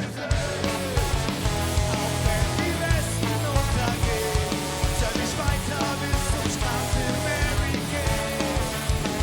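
Ska-punk band playing live: a held chord gives way right at the start to drums, bass and electric guitar coming in together on a fast, steady beat, an instrumental passage without singing.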